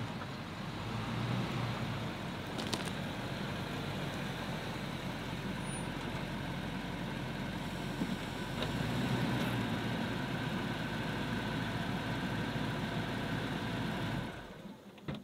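Toyota Land Cruiser 200-series SUV engine running steadily as the truck pulls in slowly and sits idling. The sound drops away near the end, as when the engine is switched off.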